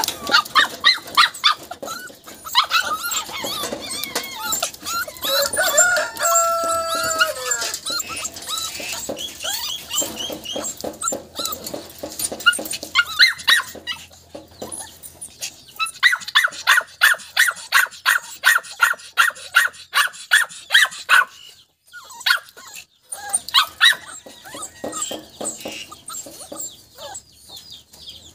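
Rottweiler puppies whining and yipping in quick runs of short high calls, with one longer drawn-out call about six seconds in.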